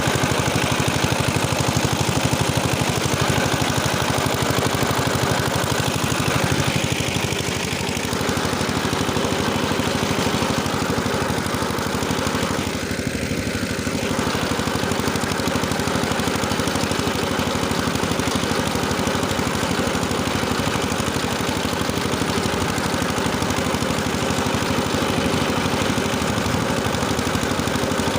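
Tractor engine running steadily under load while working a rotary tiller through the soil, with two brief slight dips in level.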